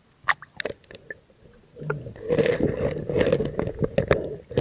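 A few sharp knocks and clicks from handling the camera, then from about two seconds in a dense, muffled sloshing and gurgling of water around the microphone as the camera goes underwater.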